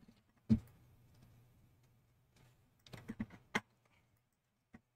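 Computer keyboard keys and mouse buttons clicking: one click about half a second in, a quick run of five or six keystrokes around three seconds in, and a faint tap near the end.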